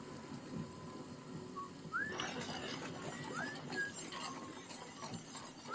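Birds chirping: short calls that rise and then fall, a few of them about a second apart from about two seconds in, over a low steady background ambience.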